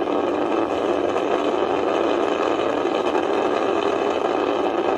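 Ariane 5 rocket's two solid boosters and Vulcain main engine in a steady roar as the rocket climbs away just after liftoff.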